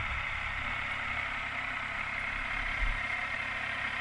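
Yamaha Tracer 900's three-cylinder engine running steadily, with a short low thud about three seconds in.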